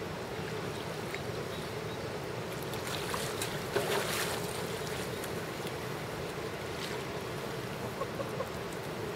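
Splashing in shallow river water as a large wels catfish is grabbed by hand and landed, with a burst of splashing about four seconds in over a steady rush of water and wind.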